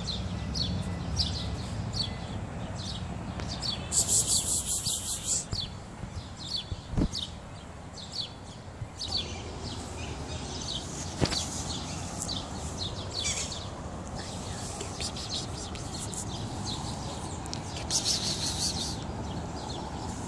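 Small birds chirping over and over in the surrounding trees, with two louder bursts of harsh, high buzzing chatter about four seconds in and near the end, and a couple of sharp taps in between.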